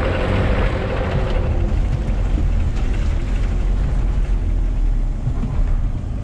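Suzuki Vitara 4x4's engine running under load, pulling forward through mud, with a heavy low rumble and a sudden rush of noise at the start that dies away over a second or two.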